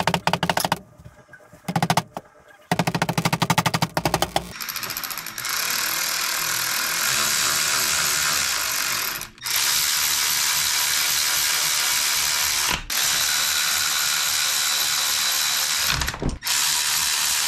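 Cordless electric ratchet running down the case bolts on a Subaru 5-speed manual transmission. It gives fast clicking in short bursts over the first few seconds, then long, steady runs of the motor, with three brief stops.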